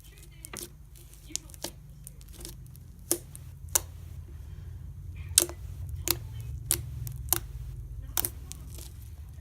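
Fluffy slime being poked and squeezed by hand, giving irregular sharp pops and clicks, about a dozen, over a steady low background hum.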